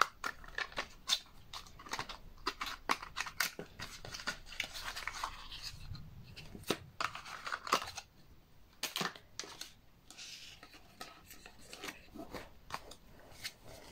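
Hands handling photocards and plastic packaging: quiet rustling and crinkling with many light clicks and taps.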